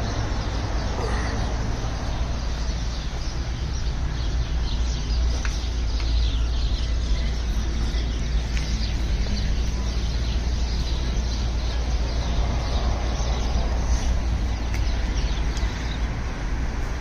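Steady low outdoor rumble, like wind or traffic, with faint high bird chirps in the middle stretch.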